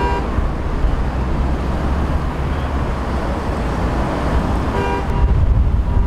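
Steady road traffic rumble at an intersection, broken by short car-horn toots: one at the very start and a couple more about five seconds in.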